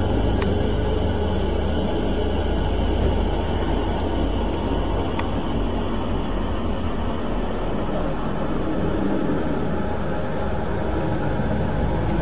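Low-flying helicopter passing overhead, its two-blade main rotor and engine giving a steady, loud low rumble with a broad rushing noise above it.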